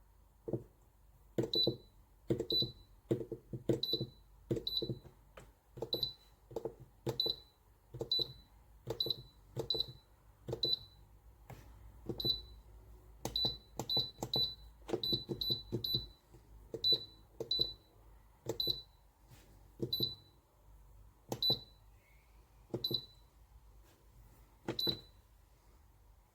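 Control-panel buttons of an Alpicool C9 compressor car fridge pressed one after another, each press a click followed by a short high beep. There are about thirty presses, unevenly spaced, some in quick runs.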